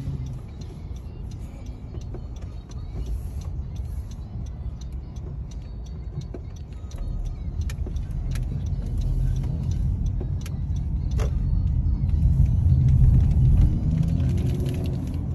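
Road and engine rumble heard from inside a moving car's cabin, growing louder through the second half, with a few light clicks.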